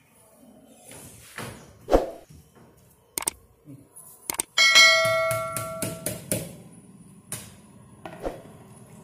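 Mouse clicks and a bright bell-like ding from a subscribe-button animation's sound effect, ringing and fading away over a second or so, among a few knocks and dull thumps, the last as a plastic bowl is set down on a concrete floor near the end.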